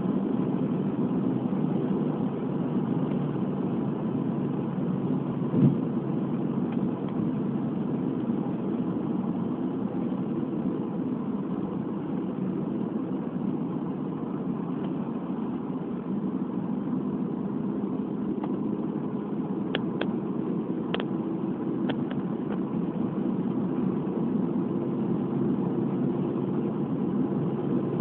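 A car driving at speed on a highway: a steady engine hum with tyre and road noise. There is one short thump about six seconds in and three faint clicks around twenty to twenty-two seconds.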